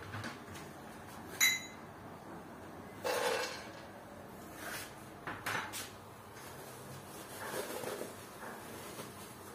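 Metal pan and utensils clinking and clattering as nuts are put into a pan to be dry-roasted: a sharp ringing clink about a second and a half in, a longer rattling clatter near three seconds, then a few lighter knocks and a soft scrape.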